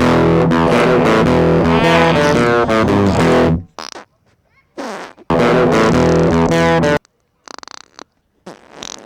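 Loud distorted electric guitar music in two bursts, each cutting off abruptly. Between them come short near-silent gaps with brief noises, one a short buzzing sound.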